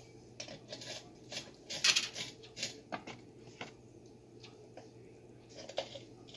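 Small metal bolts clinking and tapping as they are handled and fitted into a Nelson tractor lawn sprinkler: irregular short clicks, loudest about two seconds in, sparser and fainter later, with a few more near the end.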